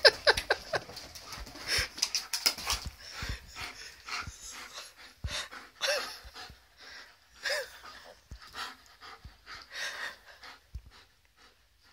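Alaskan malamute panting hard in quick, irregular breaths, with a couple of short whines midway.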